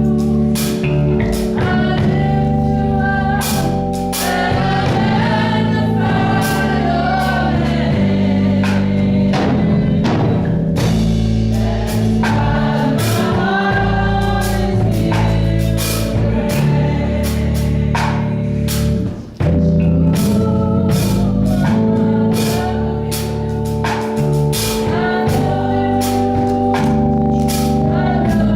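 Gospel song: singing over held chords and a steady drum beat. It drops out for a moment about 19 seconds in.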